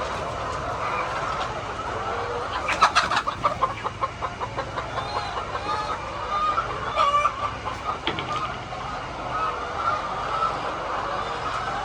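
A flock of chickens clucking continuously. About three seconds in, one bird breaks into a loud rapid run of calls, and another loud call comes at about seven seconds.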